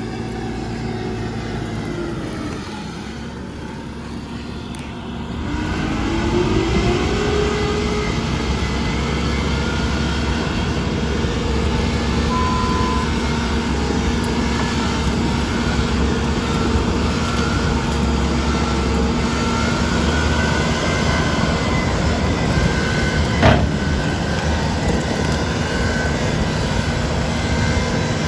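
Bobcat T770 skid steer's diesel engine running. It throttles down about two seconds in, revs back up a few seconds later and then holds a steady high throttle. A single sharp knock comes near the end.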